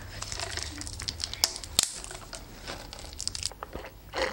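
Thin plastic crinkling and tearing as a straw is unwrapped and pushed into a sealed plastic cup of café latte, with a sharp click about two seconds in.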